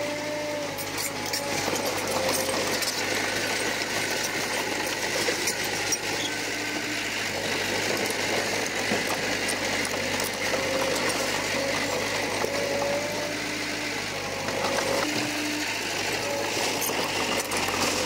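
Komatsu bulldozer working: its diesel engine runs steadily under a busy mechanical rattle and clatter.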